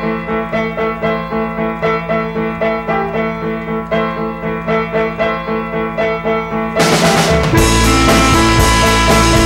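Background music: a repeated figure pulsing about three times a second, then a louder, fuller band section with drums and heavy bass comes in about seven seconds in.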